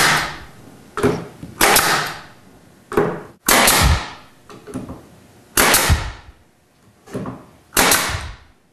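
Pneumatic cap stapler firing staples through plastic caps into plywood: five sharp shots about two seconds apart, each followed by a short fading hiss, with softer knocks between as the tool is set down.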